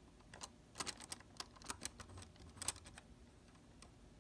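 Lego garage door opening: an irregular string of light plastic clicks and ticks from the bricks, which stops about three seconds in.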